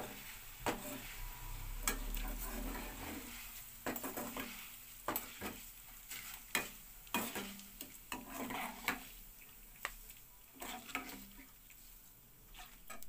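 Poha (flattened rice) deep-frying in hot oil in a kadai, with a faint steady sizzle. A wire-mesh strainer stirs it, scraping and clinking against the pan in irregular strokes about once a second.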